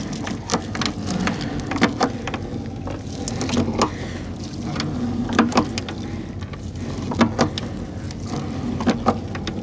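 Small fishing boat's engine running steadily, with scattered knocks and clatter.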